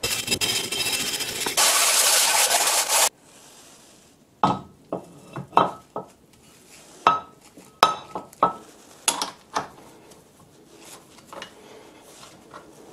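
Wire brush scrubbing rust off a cast iron brake rotor, a loud rasping hiss that stops suddenly about three seconds in. Then a string of sharp metal clinks, some with a brief ringing tone, as the rotor is knocked against and fitted into the lathe's three-jaw chuck.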